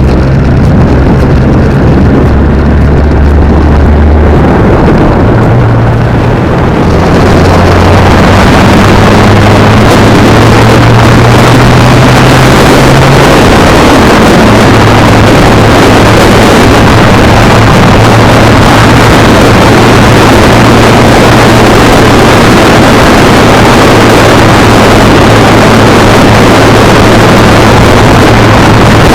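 Kawasaki Z900 inline-four motorcycle engine under way. Its note steps to new pitches several times in the first half as the revs change, then holds steady at cruise. Wind rushing over the microphone grows loud after several seconds and stays heavy.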